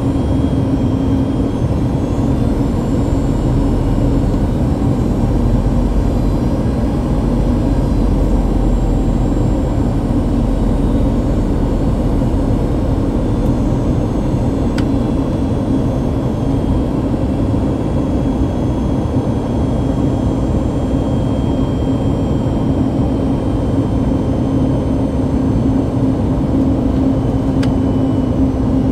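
Steady cabin noise of a Boeing 737 MAX 8 in flight, heard from a window seat beside the wing: the CFM LEAP-1B turbofan and rushing air make a constant rushing drone with a steady hum underneath.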